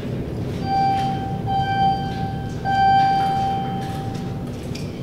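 Elevator arrival chime: three electronic tones at the same pitch, about a second apart, the last one held longer and fading away as the elevator doors open.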